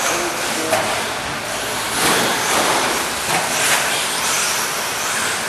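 Radio-controlled electric trucks running on an indoor dirt track: a steady rushing noise that surges louder about two seconds in and again about three and a half seconds in.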